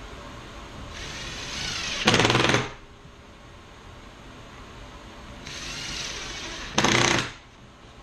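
Cordless drill driving screws into wood, twice. Each run builds for about a second and ends in a short, loud rattling burst as the screw seats, the first about two seconds in and the second near the end.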